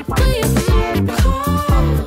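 Upbeat dance-pop music with a heavy, steady bass beat.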